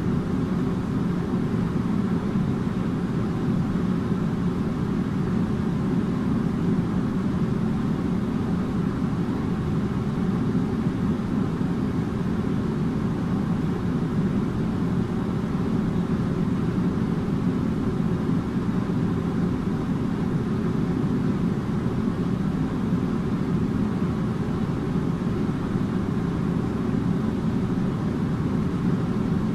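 Air conditioner running steadily: an even, low rushing hum with a faint steady tone above it, unchanging throughout.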